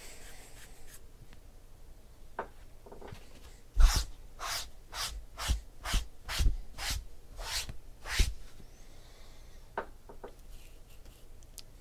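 Trading-card pack being handled at a table: a run of about a dozen short scraping, rustling strokes, roughly two a second, from about four to eight seconds in, then a few faint clicks.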